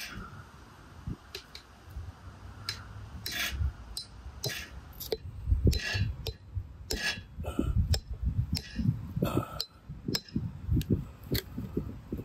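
Axe chopping a large catfish into steaks: irregular heavy thuds of the blade through the fish into the board, mixed with sharper knocks and clinks.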